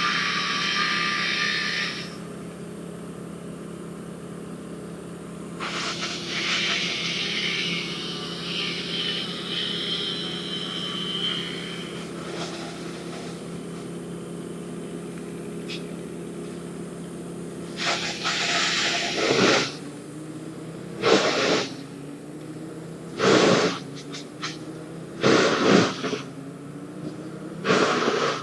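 A steady engine hum from running machinery. A higher hissing sound rides over it briefly at the start and again for several seconds a little later. In the last ten seconds there are about five short, loud bursts a couple of seconds apart, with the engine pitch rising between them.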